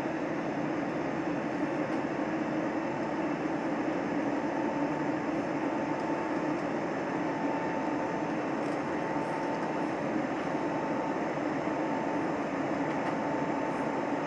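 Steady cabin drone of an Airbus A320neo in its climb after takeoff, heard from a window seat beside the engine: a constant rush of engine and airflow noise with a low hum and a faint higher tone that wavers in and out.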